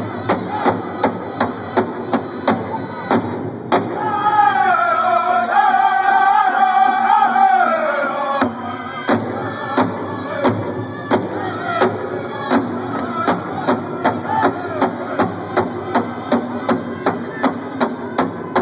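Powwow drum group: a big drum struck in a steady beat under high, wavering singing voices. About four seconds in the drumbeat stops while one high voice holds a long wavering note that slides down, and the drum comes back in just past eight seconds.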